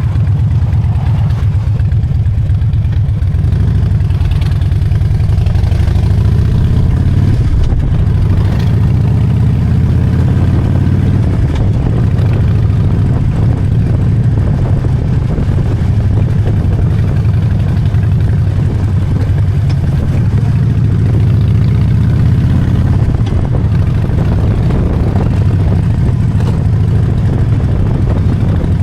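Harley-Davidson Dyna Street Bob's V-twin engine running steadily with a deep, even note.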